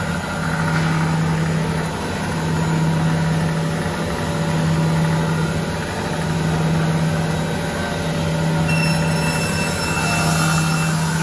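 Edge banding machine running idle: a steady low motor hum that swells and fades about every two seconds. A faint high whine joins near the end.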